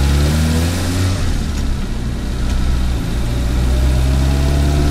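Turbocharged Mitsubishi Mirage engine running steadily at low revs, warming up, with the pitch drifting slightly upward now and then.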